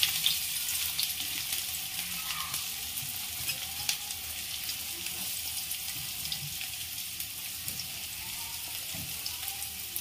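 Chopped onions frying in hot oil with cumin seeds in a steel kadhai: a steady sizzle with scattered crackles, settling a little as it goes.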